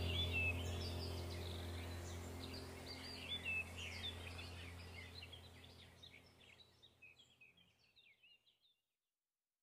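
Birds singing in short chirps over a low steady hum, the whole fading out gradually.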